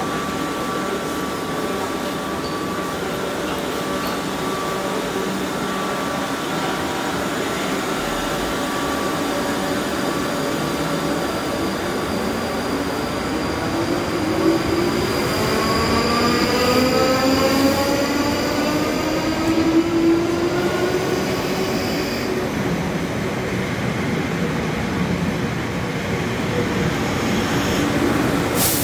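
Electric multiple unit moving through the platform, its wheels rumbling on the rails; about halfway through, the traction motors' whine climbs steadily in pitch as the train gathers speed. A single sharp bang comes near the end.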